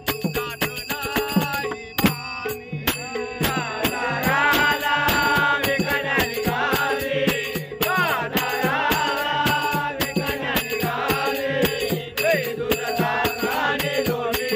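An elderly man singing a devotional bhajan over a steady beat of hand percussion with metallic jingling; the singing comes in about three and a half seconds in.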